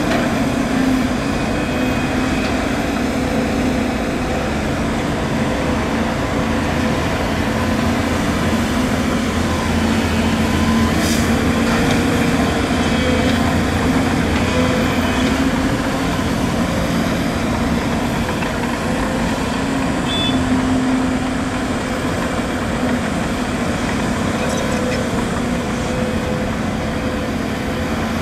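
Volvo EC250DL excavator's diesel engine running steadily under working load as it digs soil and loads a dump truck, with one short knock near the middle.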